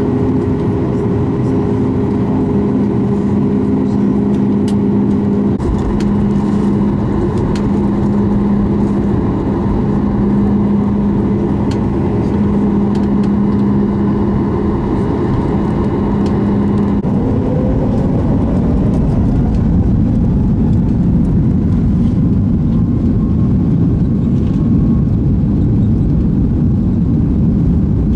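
Cabin noise of a Boeing 737 MAX 8 taxiing, heard from a window seat: the steady rumble of its CFM LEAP-1B engines at low power, with airflow. A steady hum runs underneath and stops a little over halfway through, followed by a brief rising whine as the rumble grows fuller.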